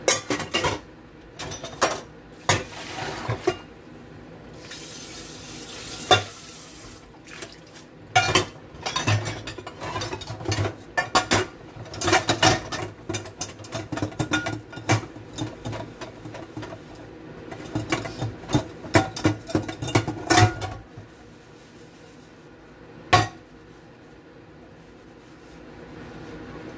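Stainless-steel pots and a steel colander being scrubbed with a sponge in a steel sink, knocking and clinking against each other and the sink in irregular runs, with a thin trickle of tap water. The clatter stops about 21 seconds in, with one last sharp clank a couple of seconds later.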